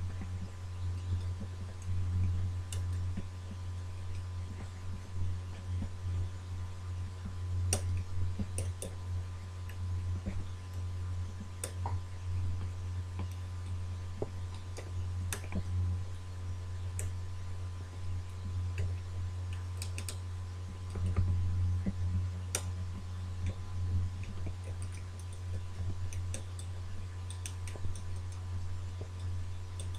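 Irregular small metallic clicks and ticks of a lock pick working the levers inside an old ERA British Standard sash mortise lock, over a steady low hum.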